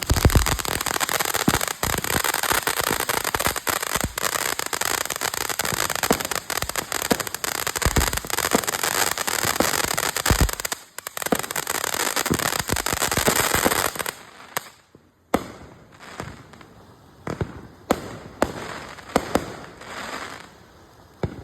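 Phantom Fireworks 'Ultimate Tank' fountain going off: a dense, loud hissing crackle with a brief dip about 11 seconds in. It dies down about 14 seconds in to scattered pops and crackles.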